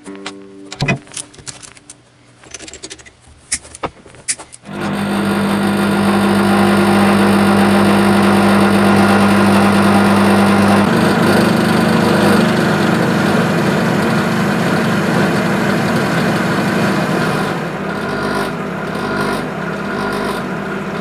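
Denford CNC milling machine's spindle motor starting up after a few light clicks and then running with a loud, steady drone that shifts in tone about halfway through. It is a terrible noise that comes from the motor being mounted steel on steel with no padding, not from worn bearings.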